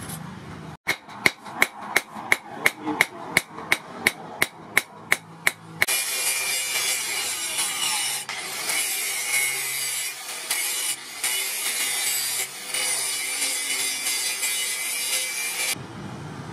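A hammer strikes a forged steel knife blade on an anvil about three times a second for some five seconds. An angle grinder with a flap disc then grinds the blade steadily, dipping briefly twice as the disc lifts off the steel.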